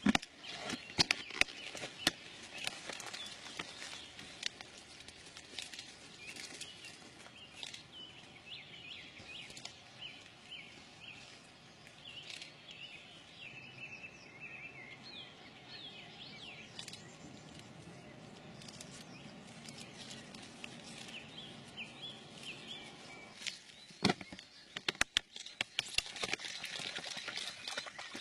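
Caged mink squeaking and chattering in many short high chirps, with sharp metallic clicks and rattles of the wire cages near the start and again near the end.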